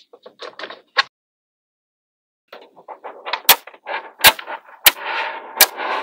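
Small magnetic balls clicking and clattering as they are handled: a few light clicks in the first second, then, after a pause, a dense rattle of balls with sharp snaps about every 0.7 s as they snap together.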